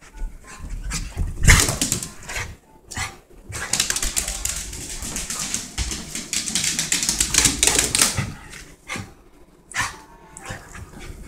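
Rat terrier scrabbling and dashing about in post-bath zoomies, its claws and paws clicking and scraping rapidly on the floor, with dog sounds mixed in. There is a sharp loud knock about a second and a half in.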